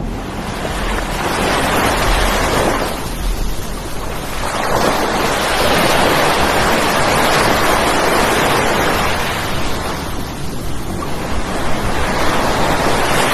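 Heavy surf breaking on a sandy beach, a steady rushing noise that swells and eases every few seconds as the waves come in, with strong wind buffeting the microphone.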